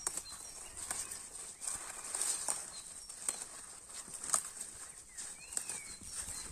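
Outdoor rural ambience: scattered light rustles and knocks with a few brief bird chirps over a faint steady high hiss.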